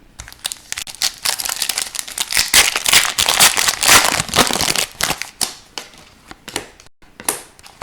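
Crinkling of a foil trading-card pack wrapper being handled. It is dense for about five seconds, then thins to a few scattered clicks.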